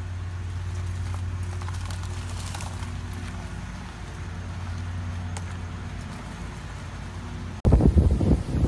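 A steady low hum with faint scattered ticks. About seven and a half seconds in, it cuts abruptly to loud gusting hurricane wind buffeting the microphone.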